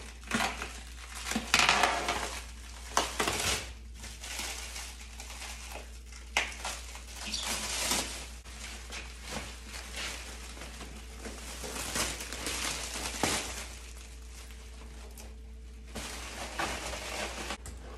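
Clear plastic wrap being cut with scissors and pulled off a machine, crinkling and rustling in irregular bursts.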